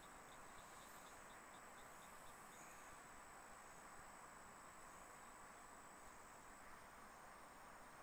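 Near silence with faint insects calling over a low hiss: a quick run of high chirps, about five a second, that dies away after the first couple of seconds, and a thin high steady trill that stops a little over six seconds in.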